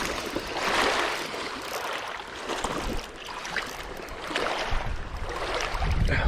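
Strong wind blowing over a lake, with a steady rushing hiss and water lapping; in the last second or so gusts buffet the microphone with a low rumble.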